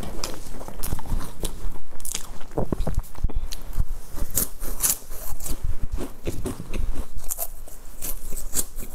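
Biting and chewing crunchy rolled snack sticks: many sharp, irregular crunches and crackles.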